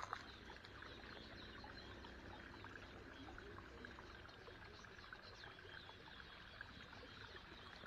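Faint, steady running water of a stream, trickling with a fine crackle.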